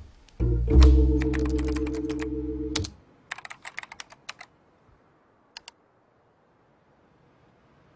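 A held chord of background music ends about three seconds in. Then comes a quick run of keystrokes on a computer keyboard, typing a search, followed by two more key clicks a second later.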